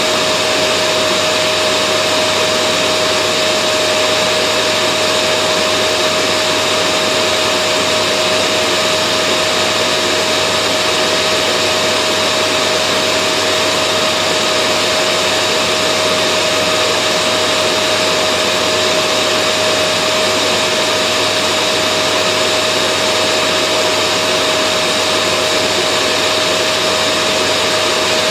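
Vacuum cleaner running continuously: an even rushing hiss with a steady motor whine, unchanging in pitch and loudness.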